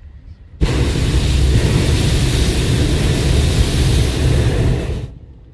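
Hot-air balloon's propane burner firing in one long, loud blast that starts abruptly about half a second in and cuts off about five seconds in.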